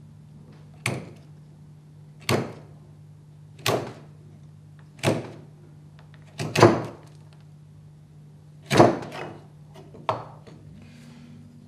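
Wood chisel pushed by hand, paring the waste of a cross halving joint: seven short, crisp cuts about one and a half seconds apart as chips of timber split away.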